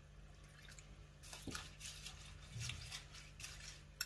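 Flattened rice (poha) being washed by hand in a bowl of water: faint, irregular sloshing and splashing, several small strokes a second, starting about a second in.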